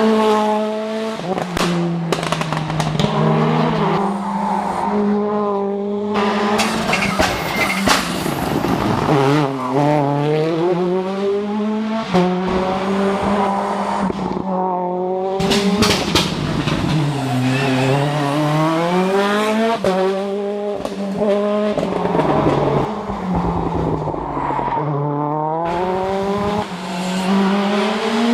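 Toyota Yaris WRC rally car's 1.6-litre turbocharged four-cylinder engine revving hard, its pitch rising and falling again and again as the driver works up and down the gears.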